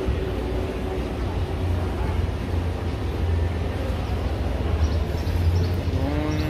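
Busy open-air market ambience: faint background voices over a steady low rumble, with one voice rising in pitch near the end.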